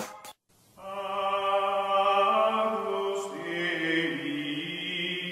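Chant-like choral music: voices holding long, slowly shifting chords. It starts after a brief gap about a second in.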